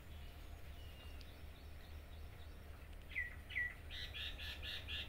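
A bird chirping: two short falling chirps about three seconds in, then a quick run of repeated notes near the end, over a faint low hum.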